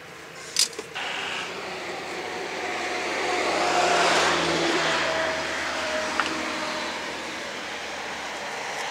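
A road vehicle passing by: a rush of engine and tyre noise that swells to a peak about four seconds in and then fades, its faint hum dropping slightly in pitch as it goes.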